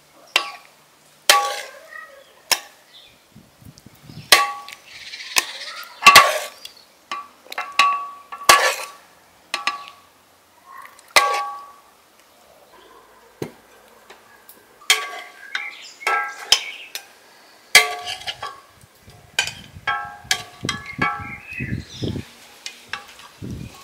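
Metal ladle clinking against a stone-coated cooking pan and ceramic plates as stew is served out: a long irregular run of sharp clinks, each with a brief ringing tone.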